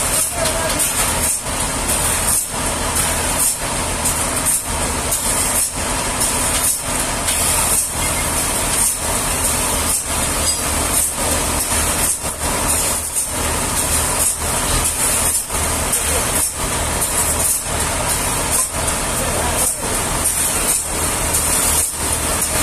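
Sawmill machinery running steadily: a low engine drone under a loud hiss, dipping briefly about once a second.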